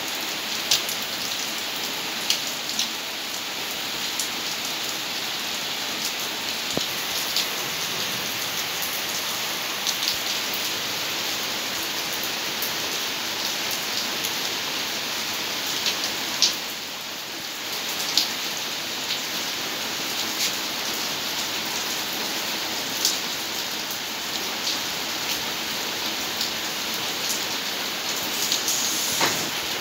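Steady rain falling onto a flooded paved yard, with scattered sharp taps of drops striking close by.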